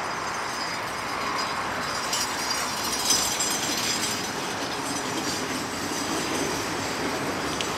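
The petrol engine of a 2003 Mitsubishi Colt, started from the remote fob, running steadily at idle with a rattly clatter. There is one sharp click about three seconds in.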